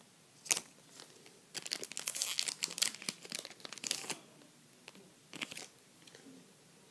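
Foil Pokémon booster-pack wrapper crinkling and tearing in the hands: one sharp crackle, then a longer run of crinkling for a couple of seconds, then another short crackle.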